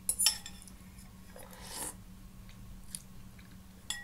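Eating ramen: a metal utensil clinks against the bowl with a short ring near the start and again near the end, with chewing and mouth noises in between.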